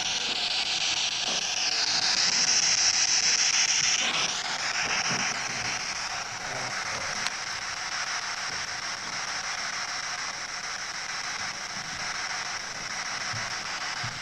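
Steady static hiss from a handheld electronic ghost-hunting device held out for spirits to talk through, the hiss wavering in pitch and louder for a couple of seconds near the start.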